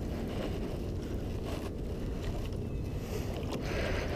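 Steady low wind rumble on the microphone over open water beside a small rowboat-type boat.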